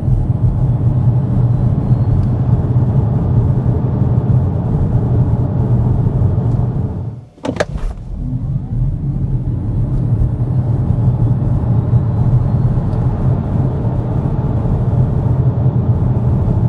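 Xpeng G6 Performance electric car driving: a steady low road and tyre rumble that cuts out briefly about seven seconds in, then resumes.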